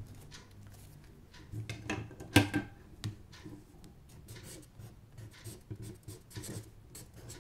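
Pen writing on a paper card: short, irregular scratching strokes as Korean letters are drawn by hand, with one louder sharp tap about two and a half seconds in.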